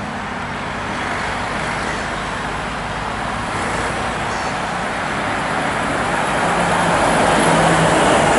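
DAF XF tractor unit with a curtainsider trailer driving past: engine and tyre noise growing steadily louder as it approaches, loudest near the end as it passes close.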